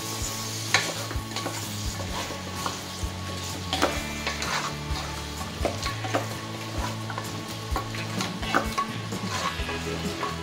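Wooden spatula stirring and scraping chunks of raw mutton through hot masala in an aluminium pressure cooker, with sizzling and frequent short clicks of the spatula against the pot. This is the mutton being browned in the fried onion-tomato masala.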